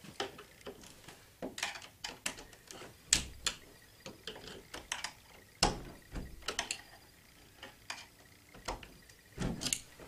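A locked doorknob's latch being worked with a thin flat tool slipped into the door gap to pry it open: scattered small metal clicks and scrapes, with louder knocks about three and five and a half seconds in and a quick run of clicks near the end as the latch gives.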